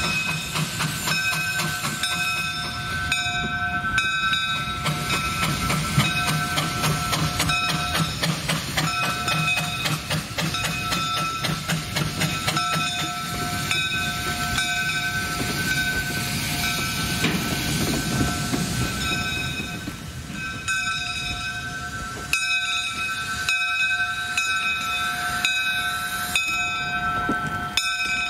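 Two-foot-gauge steam train, Sandy River & Rangeley Lakes No. 6 and its wooden coaches, rolling slowly past. Wheels click in a steady patter over the rail joints under a low rumble, and a high squeal comes and goes throughout.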